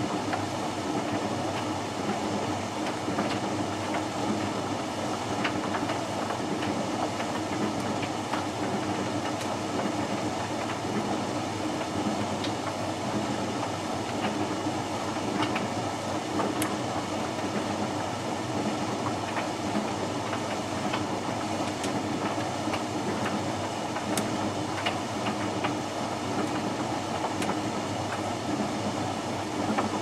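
Hoover VisionHD condenser tumble dryer running on its bone dry cycle: the drum turns with a steady hum and rumble, and faint scattered clicks sound as the load tumbles.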